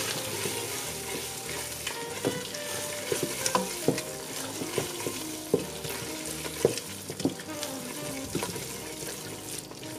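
Chopped scallions, garlic and parsley being stirred into a dark roux with sweating onions, celery and bell pepper in a pot: a low steady sizzle with irregular scrapes and knocks from the stirring.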